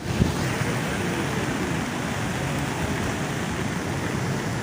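Steady rushing of the Swat River in flood, fast high water. A brief thump sounds just after the start.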